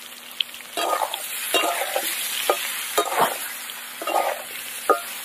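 Boiled potatoes frying in hot mustard oil with whole spices in a metal kadai, a faint sizzle under a spatula that starts about a second in and scrapes and turns them in repeated strokes.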